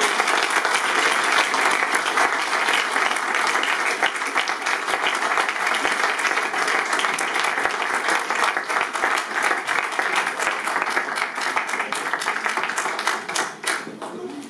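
Audience applauding, a dense steady clapping that dies down near the end.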